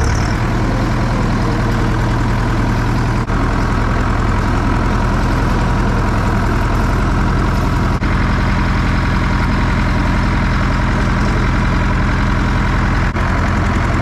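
Zetor 6711 tractor's diesel engine running steadily at a low, even speed.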